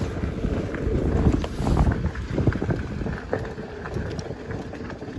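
Wind buffeting the microphone on a moving vehicle, a rough gusting rumble with scattered knocks from the rough road, easing after about two seconds.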